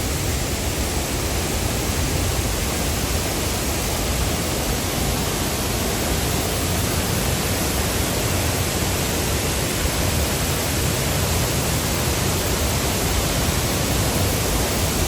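Waterfall in strong flow: a loud, steady rush of falling water that does not change.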